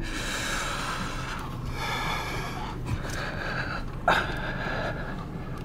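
Car running, heard from inside the cabin while it rolls slowly forward: a steady low engine hum under a hissing rush, with one short knock about four seconds in.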